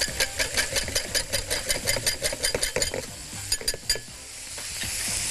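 Wire balloon whisk beating a mixture in a metal pot: quick, even clicking strokes about six a second that stop about three seconds in, then a few more strokes. A steady sizzling hiss rises near the end.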